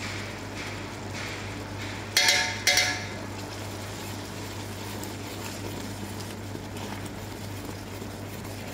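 Toffee of caramelized sugar, butter and cream bubbling and hissing in a steel pot as it is stirred, frothing after baking soda has gone in, over a steady low hum. About two seconds in, the spatula knocks twice against the pot with a short metallic clink.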